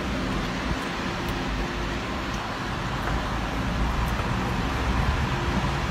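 Storm wind rushing steadily through garden trees, with a low rumble of wind buffeting the phone's microphone.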